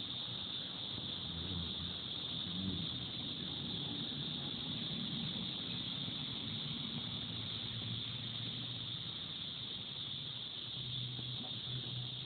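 Steady high-pitched insect chorus, a continuous trill of crickets-type insects that doesn't break, with faint low rumble beneath.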